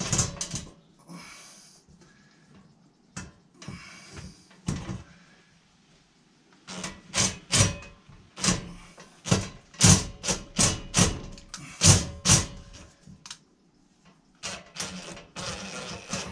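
Cordless impact driver driving a screw through a long extension bar: two short whirs early, then a run of sharp, irregular knocks, roughly two a second, from about a third of the way in, with quicker clicking near the end.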